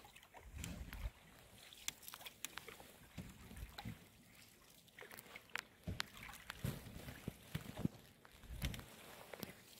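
Open canoe being paddled on calm water: soft, irregular sloshes of paddle strokes and drips, with small sharp clicks and knocks.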